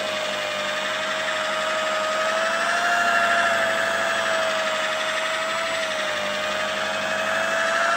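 Electric rotary polisher running under load, its pad buffing polish into sanded varnish on a wooden bench seat: a steady motor whine whose pitch wavers slightly as the pad is worked over the wood.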